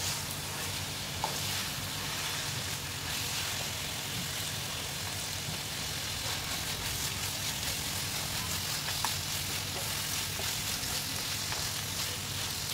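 Mutton kheema (minced meat) with green chillies sizzling steadily in a nonstick frying pan as it is stirred with a spatula, with a few light clicks.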